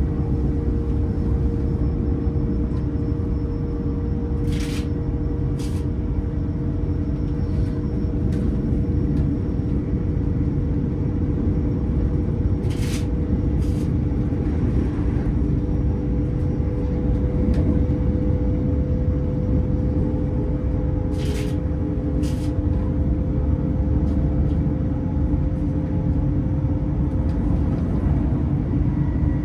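Passenger train running, heard from inside the carriage: a steady low rumble with a constant hum. Sharp clicks come in pairs about a second apart, three times.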